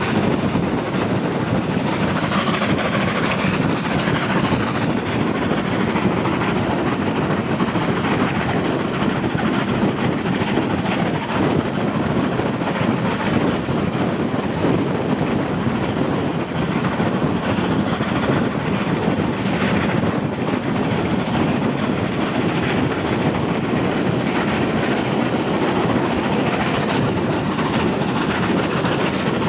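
Steam-hauled train running steadily along the track: a constant rolling rumble of wheels on rails with clickety-clack.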